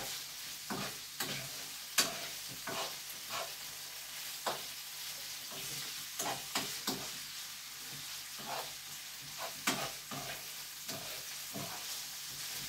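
Small pieces of chicken breast sizzling as they fry in a pan, with a utensil scraping and knocking against the pan every half second to second as they are stirred.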